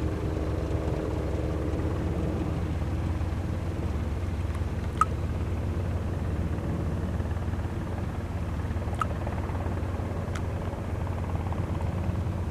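Cessna 172R Skyhawk's four-cylinder piston engine and propeller running at low taxi power, a steady low drone whose higher tones fade in the first few seconds as the plane moves away. A faint click about five seconds in.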